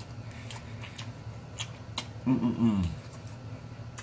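Wet mouth smacks and lip clicks of someone eating a burger and licking his fingers, with a short hummed 'mmm' moan falling in pitch a little over two seconds in.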